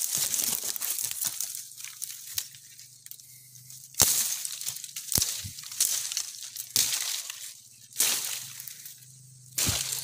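Dry twigs, branches and leaf litter crackling and rustling as someone pushes on foot through dense dry brush. The noises come in uneven bursts about a second apart, the sharpest cracks about four, six and eight seconds in.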